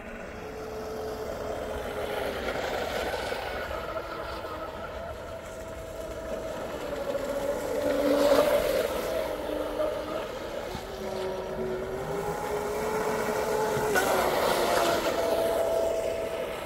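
Brushless electric motor of a Traxxas M41 RC speedboat whining as it runs on the water. The pitch drifts up and down, and it grows loudest twice, about eight and fourteen seconds in.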